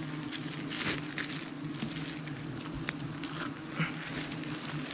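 Giant honeybees buzzing in numbers: a steady low hum, with scattered light rustles and clicks.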